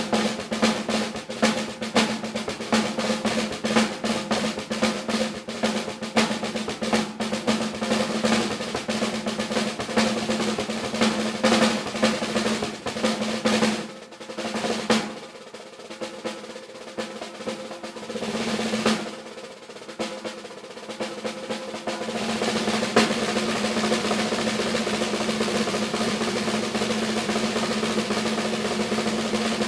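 Solo snare drum playing fast rudimental strokes and rolls. It drops to a softer, sparser passage about halfway through, then settles into a sustained, even roll for the last quarter.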